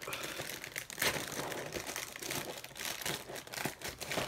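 Plastic liner bag inside a Cookie Crisp cereal box crinkling and rustling as it is handled, with irregular crackles.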